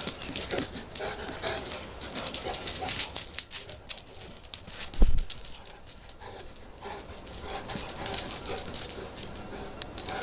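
An adult Saint Bernard and a Saint Bernard puppy play-fighting on paving: scuffling and many short clicks of paws and claws, with brief dog vocalisations. There is one loud low thump about five seconds in.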